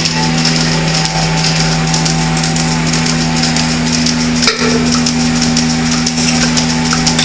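Dairy farm machinery running: a steady low mechanical hum with a dense, rapid clicking rattle over it, briefly interrupted about four and a half seconds in.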